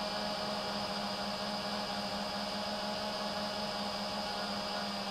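FPV racing drone's electric motors and propellers running at steady throttle, a constant motor hum with a higher whine over hiss.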